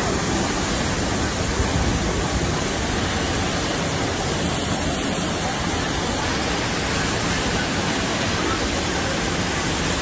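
Steady, even rush of water from the Düden waterfall and the fast rapids of the river below it.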